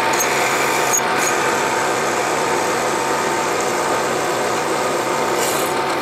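Bridgeport vertical milling machine spindle running with a quarter-inch drill bit cutting a pilot hole through a metal bar, a steady drilling noise as the chips come off.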